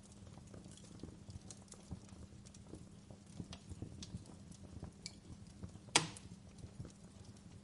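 Campfire crackling: scattered small pops and ticks of burning wood over a low steady rumble of flames, with one loud sharp snap about six seconds in.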